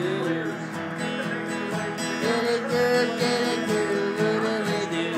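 Acoustic guitar strumming a tune, with a melody moving over the chords.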